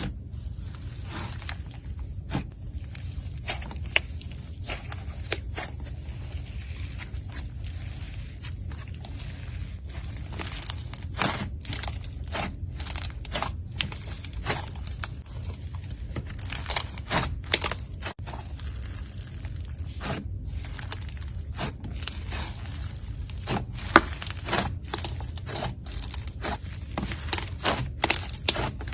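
Slime being squished, stretched and pressed by hand, giving irregular crackles, pops and crunches over a steady low hum.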